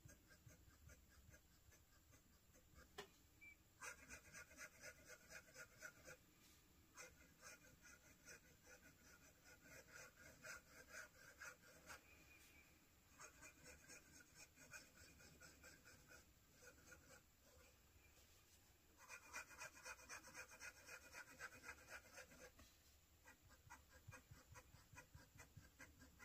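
Black oxide Jowo medium steel fountain pen nib writing on paper: faint, quick scratching strokes in several runs of repeated letters, broken by short pauses between rows.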